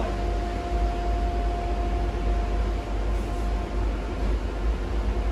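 Cabin noise inside a battery-electric articulated city bus: a steady low rumble with an even hiss, and a few faint steady tones held over it.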